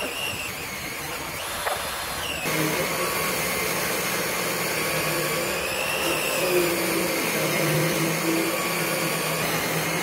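A 10-inch jobsite table saw ripping a long pine board lengthwise. The sound grows louder and steadier about two and a half seconds in, as the cut gets under way.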